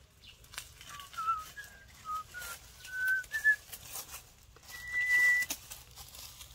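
A person whistling: a string of short notes that step up and down in pitch, then one longer held note about halfway through, with faint rustling and clicks underneath.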